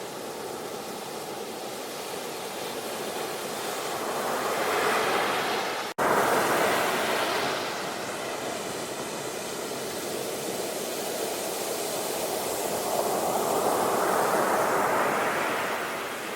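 Sea waves washing onto a shore in slow swells, a steady rushing surf that builds and ebbs twice. About six seconds in, the sound cuts out for an instant and comes back abruptly at full strength.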